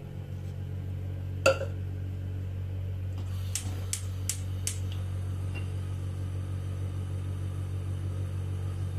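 A glass set down with a single clink, then four quick sharp clicks of a gas stove's igniter, over a steady low hum.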